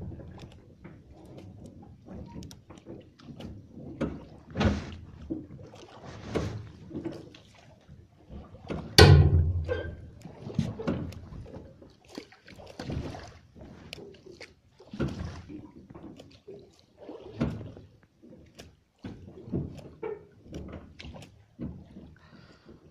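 A small boat being rowed: a stroke through the water about every two seconds, with a sharp knock about nine seconds in.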